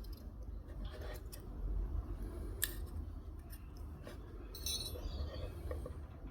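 Faint clicks and metallic taps from a small metal hand tool working a spot-welded nickel strip, with a sharp click about two and a half seconds in and a brief scraping rasp near five seconds.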